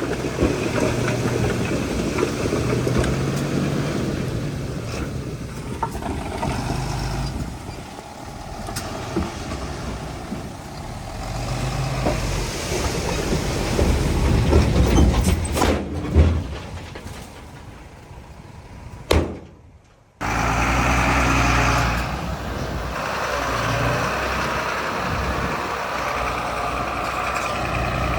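Heavy diesel earthmoving machinery running and working, with several clanks and knocks about halfway through. The sound dips, drops out briefly, and comes back at once at full level.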